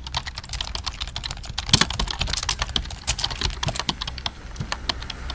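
Keyboard typing sound effect: a fast, irregular run of key clicks over a low steady rumble.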